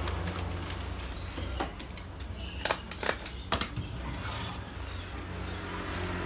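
Food wrapping and utensil handling: a handful of sharp clicks and knocks through the middle, over a low steady hum.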